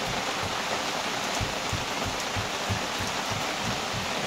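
Steady rain falling, an even hiss with irregular low taps of drops striking close by.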